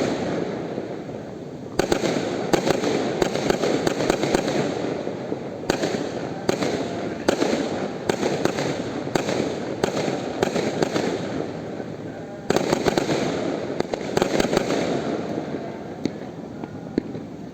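Fireworks going off without pause: a dense crackling mixed with many sharp bangs. Fresh loud volleys break out about 2, 6 and 12 seconds in.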